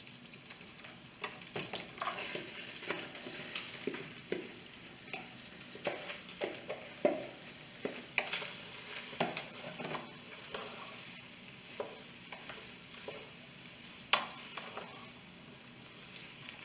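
Chopped onion, carrots and celery tipped into an electric pressure cooker's hot pot with rendered bacon fat, sizzling, then stirred with a wooden spoon. A steady low sizzle runs under irregular clicks and scrapes of the vegetables and spoon against the pot.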